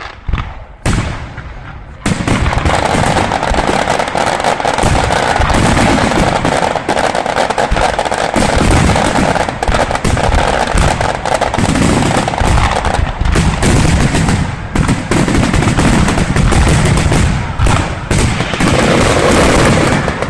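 Aerial fireworks going off: a few separate bangs, then from about two seconds in a dense, continuous barrage of rapid overlapping bangs and crackles that runs on without a break.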